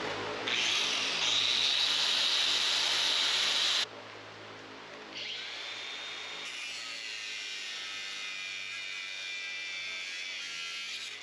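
Power tool running steadily with a high whine, clearing adhered concrete off exposed rust-pitted rebar. It comes in two stretches that start and stop abruptly: a louder one that cuts off a little under four seconds in, and a quieter one from about five seconds on.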